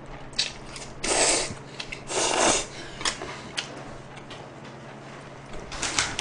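A person slurping instant makguksu noodles in spicy sauce close to the microphone: two long slurps about a second apart, then chewing with scattered wet clicks.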